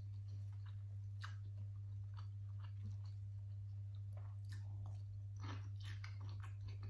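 Close-miked chewing of a mouthful of food, with scattered wet mouth clicks, then a bite into a piece of boiled bamboo shoot about two-thirds of the way through. A steady low hum runs underneath.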